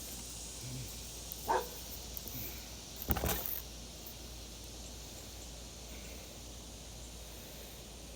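Quiet outdoor background hiss, with a single short dog bark about a second and a half in and a brief cluster of knocks and rustles around three seconds in.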